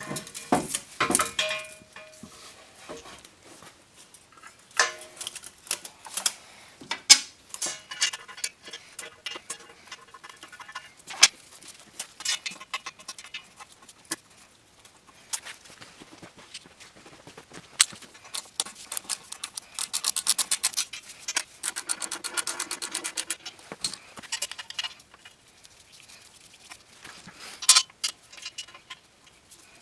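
Metal hand tools and fasteners clinking and knocking as an exhaust header is bolted onto an engine's cylinder head, with a stretch of fast, even clicking from a ratchet about two-thirds of the way through.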